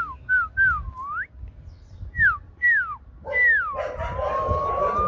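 Hmong bobtail puppy whimpering: a string of short high whines, each falling in pitch, then near the end one long whine that holds steady and rises slightly.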